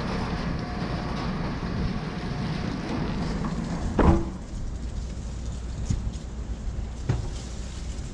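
Wind buffeting the microphone of a handlebar-mounted camera, a low steady rumble, with one loud thump about four seconds in and a fainter knock near the end.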